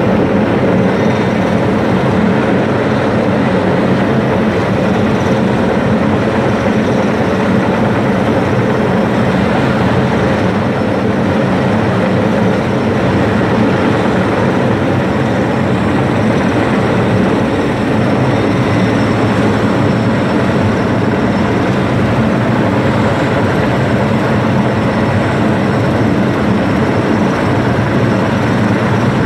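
Heavy-lift crane helicopter hovering overhead during a lift: loud, steady rotor and turbine noise with a thin, high steady whine above it.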